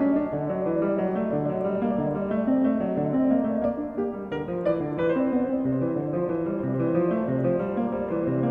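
Background piano music: a slow, steady flow of sustained notes.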